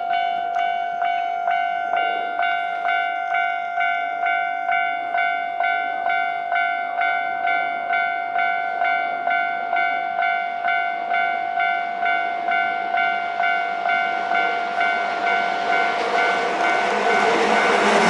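Railway level-crossing warning bell ringing steadily, about one and a half strikes a second. A Hankyu 6000-series electric train approaches, and its rumble grows over the last few seconds until it reaches the crossing at the end.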